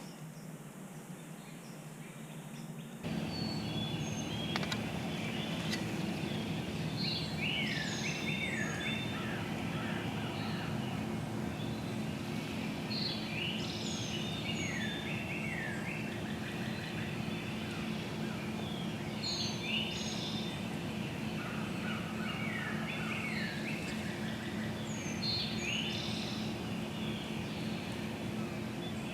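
Songbirds singing in woodland, with repeated short phrases of quick falling notes recurring every several seconds over a steady background noise. The background gets louder abruptly about three seconds in.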